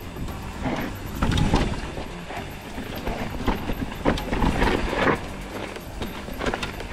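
Mountain bike rolling over rough rocky trail: tyres rumbling, with irregular knocks and rattles of the bike over rocks and roots. Wind buffets the helmet camera's microphone.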